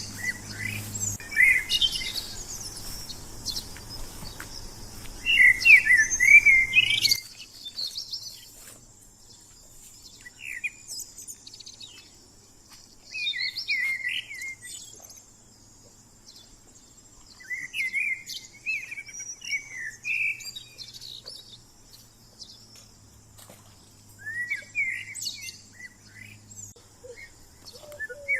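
Birds singing: short warbling phrases repeated every few seconds. A background rushing noise cuts off suddenly about seven seconds in.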